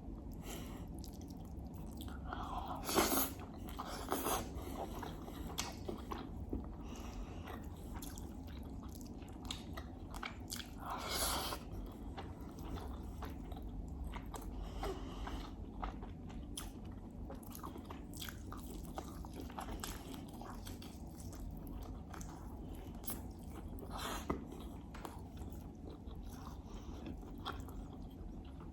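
Close-miked chewing and biting, with wet mouth clicks, from a person eating a meal of rice, herb stew and lamb. A few louder bites stand out, about three and four seconds in, around eleven seconds, and once more near the end, over a steady low hum.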